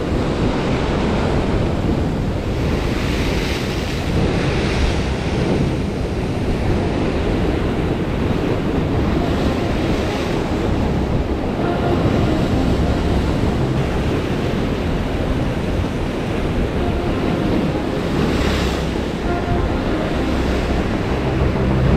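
Rough sea surf breaking and washing against shore rocks, swelling louder each time a wave comes in, with wind buffeting the microphone.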